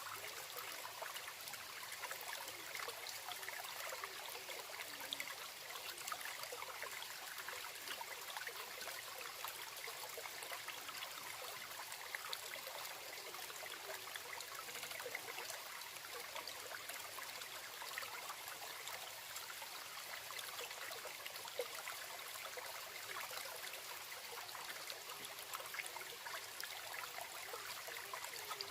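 A small stream or brook babbling and trickling steadily, with many small splashing crackles and little deep rush.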